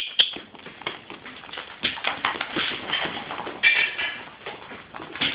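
Airedale puppies moving about in a wire pen: a jumble of irregular taps, clicks and scratches from paws and claws on the floor and pen. A short high-pitched puppy whine comes about two thirds of the way in.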